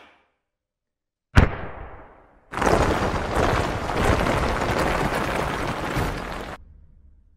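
Explosion and shattering sound effect: a sharp boom about a second and a half in that fades away, then a loud, continuous crashing blast of noise from about two and a half seconds in that cuts off suddenly near the end.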